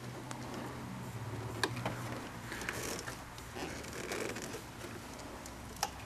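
Faint rustling and a few light clicks as a rubber boot is worked up the wiring and pushed onto the back of a motorcycle dashboard power outlet.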